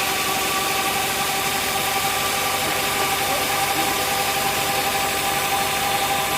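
Sawmill machinery running steadily: a constant mechanical drone with several fixed whining tones that hold unchanged throughout.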